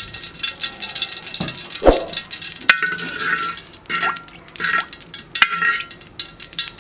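Oil crackling and spitting in a hot metal cooking pan, with a few sharp clinks and scrapes of a metal spoon against the pan.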